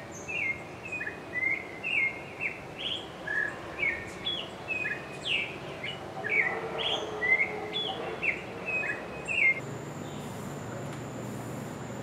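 Clay-colored thrush singing: a run of short, clear whistled phrases, two or three a second, that stops about nine and a half seconds in.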